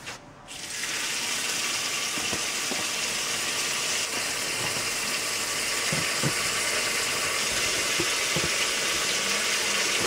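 A wall tap is opened about half a second in, and water runs in a steady stream onto a metal basin heaped with wild apples, with a few faint knocks of apples shifting.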